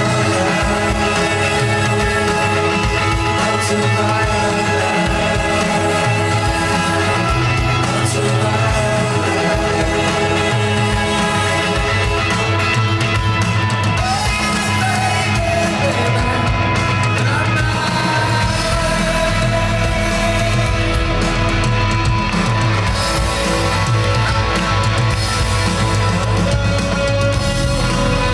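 A rock band playing live in concert, with singing over the band. A deep, steady bass note comes in about two-thirds of the way through.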